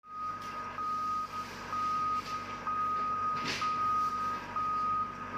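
Heavy vehicle's back-up alarm beeping, long steady beeps about twice a second with short gaps, over a low steady hum. A brief hiss about three and a half seconds in.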